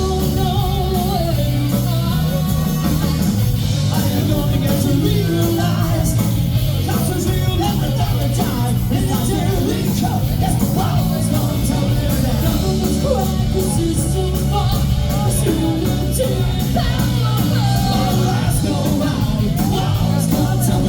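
Live rock band playing a song with a singer, loud and unbroken.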